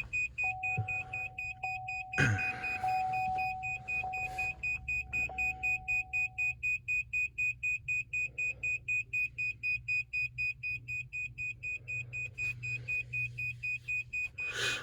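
Truck cab warning chime beeping rapidly and steadily with the key on, about three high beeps a second, joined for the first few seconds by a second, lower steady tone.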